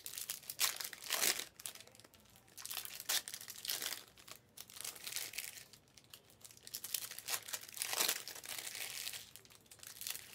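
Foil wrappers of trading-card packs crinkling and crackling as they are handled, in irregular bursts.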